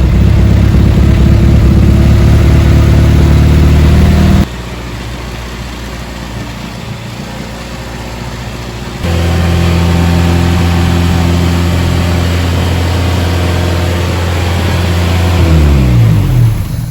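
Freshly rebuilt Nissan Micra stock car engine running at its first start-up, held at steady raised revs. Its level drops abruptly about four seconds in and comes back about nine seconds in, and the revs rise near the end before the sound cuts off. The engine runs untuned but without trouble.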